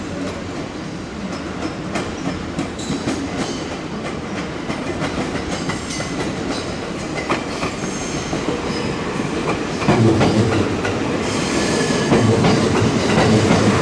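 An electric multiple-unit train running through station tracks, its wheels clacking over rail joints and points, with a faint high wheel squeal. The running noise grows louder about ten seconds in as the train comes closer.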